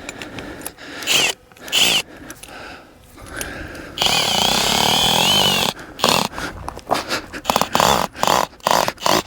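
A regular (non-impact) electric drill driving a tent screw into the ground. Two short bursts about a second in, then a steady run with a wavering whine, then a string of short, stop-start pulses as the screw stops going in, which the user takes for the screw hitting a rock.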